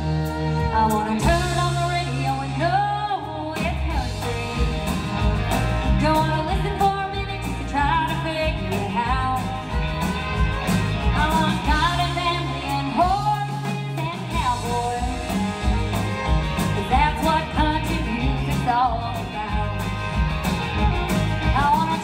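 Live country band: a woman sings lead over acoustic guitar, drums and fiddle, with a steady beat.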